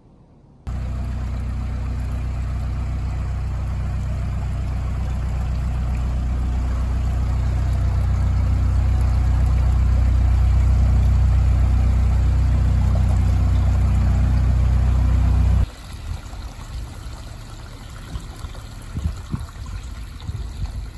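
The widebeam canal boat's diesel engine running steadily, slowly growing louder. About sixteen seconds in it cuts off suddenly, giving way to quieter trickling water.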